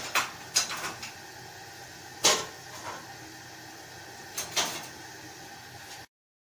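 A handful of short, sharp clicks and knocks, the loudest a little over two seconds in, over a steady low hiss; the sound cuts off abruptly about six seconds in.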